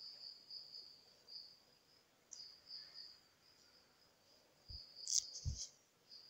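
Faint, high-pitched insect chirping that pulses on and off. About five seconds in there is a short rustle and two soft, dull bumps.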